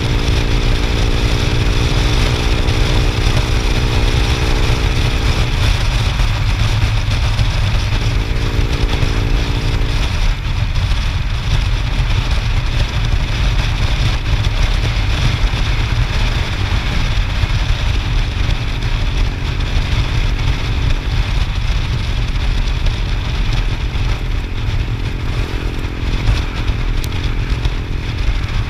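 Motorcycle engine running steadily at road speed under heavy wind rush over the microphone. The engine's hum is plain in the first few seconds, fades under the wind for much of the ride and comes back near the end.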